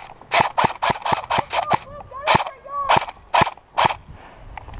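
Airsoft guns firing: a quick string of about eight sharp shots, then four more spaced about half a second apart.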